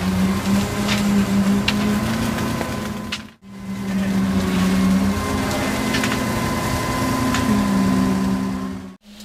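Job-site sound of high-frequency internal concrete vibrators running: a steady machine hum that shifts slightly in pitch, with scattered metallic clicks and knocks. The sound breaks off briefly about a third of the way in.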